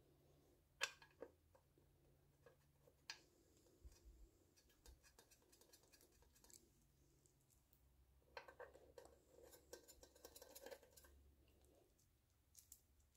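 Near silence with a few faint clicks, the sharpest about a second in, and light scraping about two-thirds of the way through: timing cover bolts on a small-block Chevy being handled and started by hand.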